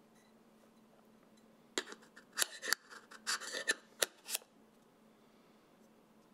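Magnetic lens cap being fitted onto a Polar Pro Helix magnetic variable ND filter on a camera lens: a quick run of sharp clicks and scraping rubs of metal and plastic over about two and a half seconds as the cap snaps into place. The cluster starts about two seconds in and stops after about four and a half seconds.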